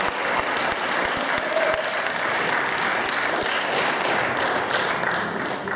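Audience applauding at a steady level.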